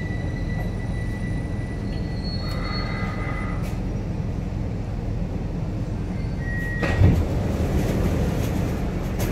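Bombardier metro train running, heard from inside the passenger car: a steady low rumble with a thin high tone that stops about three and a half seconds in, and a single thump about seven seconds in.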